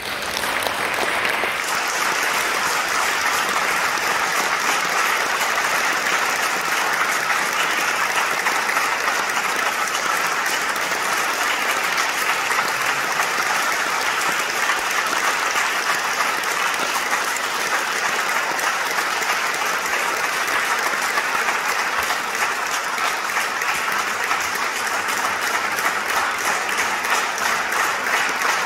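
Concert audience applauding: dense, even clapping that breaks out all at once and keeps up steadily.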